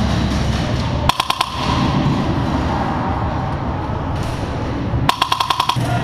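Airsoft rifle firing two short full-auto bursts of rapid clicks, a brief one about a second in and a longer one of about eight shots near the end.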